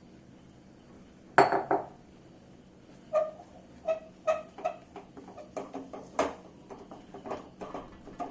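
A cooking utensil knocking and scraping against a kadhai while mashed potato is mixed into a gram-flour filling: one loud clank about a second in, then a string of shorter knocks, some of them ringing briefly.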